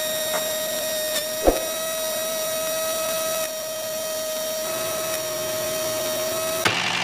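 Small electric motor driving a homemade miniature rice mill, running with a steady high whine, with a brief knock about one and a half seconds in. The whine cuts off suddenly near the end and gives way to a rougher, noisier running sound.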